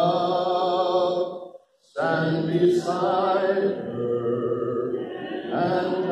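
A man singing solo and unaccompanied into a microphone, in long held notes with vibrato. He pauses for a breath about two seconds in.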